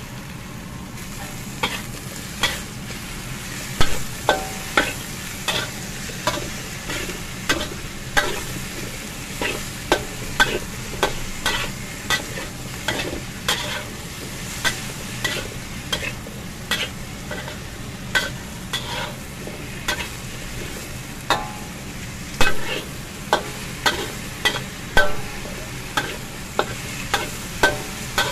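Diced potatoes and sliced beef sizzling in a pan while being stir-fried, with a metal spoon scraping and clacking against the pan every second or so.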